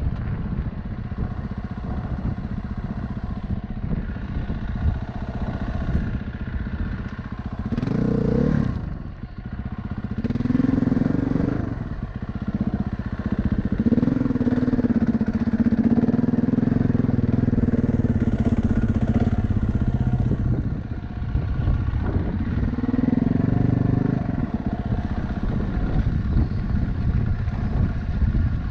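An off-road vehicle's engine working along a rough dirt trail. Its pitch rises and falls as it revs and eases off, with a steadier pull in the middle stretch over a constant rough rumble.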